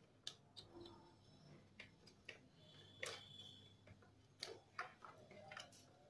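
Faint, irregular clicks and small plastic knocks of a motorcycle's indicator wiring connectors being handled and unplugged by hand, the loudest about three seconds in.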